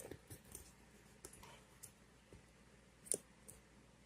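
Faint, scattered clicks and taps of small objects being handled, with one louder click about three seconds in.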